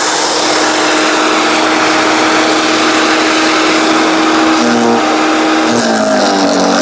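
15-amp electric wood chipper-shredder's motor running steadily at full speed, a loud whirring hum over a hiss. Its pitch dips and wavers about six seconds in.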